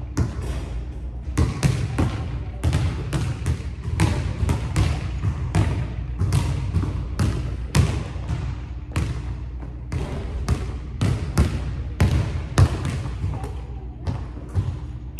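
Basketball being dribbled on a hardwood gym floor: a string of irregular, sharp bounces, roughly one or two a second, each echoing through the large empty gym.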